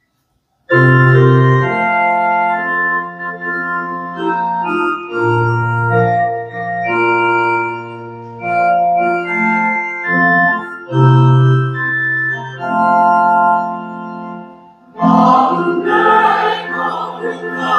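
Organ playing the hymn tune's introduction in sustained chords over a low bass line. About fifteen seconds in, a mixed church choir comes in singing the Korean hymn.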